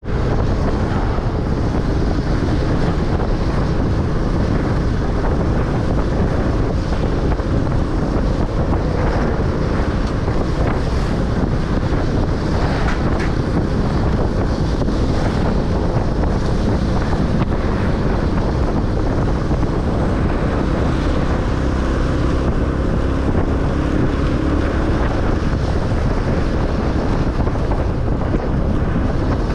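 Wind buffeting the microphone of a camera on a moving motorcycle: a loud, steady rush that covers most of the engine and road noise. The motorbike's engine hum shows faintly through it about two-thirds of the way in.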